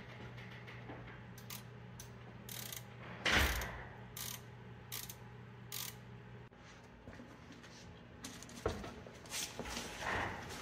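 A ratcheting wrench clicking as it turns a brake caliper bolt on a new front brake assembly: a string of separate clicks with one louder metal knock about three seconds in. A few knocks follow near the end.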